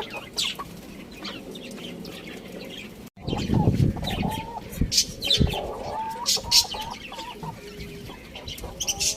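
Chickens clucking, with short pitched calls mixed with brief scratchy clicks. The sound cuts out abruptly about three seconds in, then the clucking resumes.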